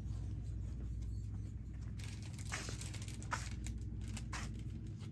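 Crinkling and rustling of plastic-wrapped party supplies being handled on a store shelf, a few short crackles starting about two seconds in, over a steady low hum.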